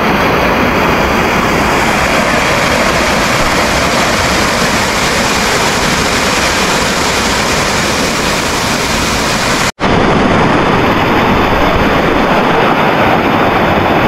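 Waterfall falling: a loud, steady rush of water. It breaks off for an instant about ten seconds in, then goes on.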